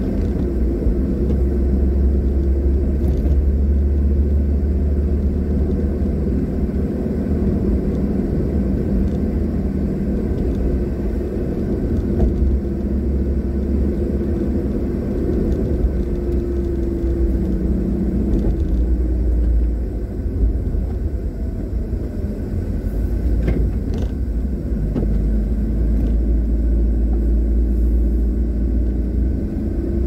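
Car driving steadily along a paved road: a constant low rumble of engine and road noise, with an engine hum that wavers a little in pitch.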